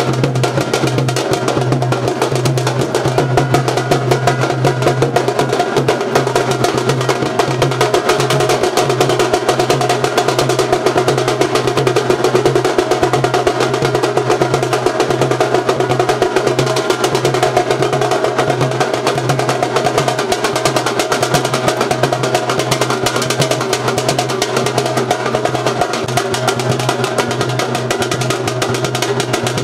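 Music driven by fast, continuous drumming over a steady low drone, unchanging throughout.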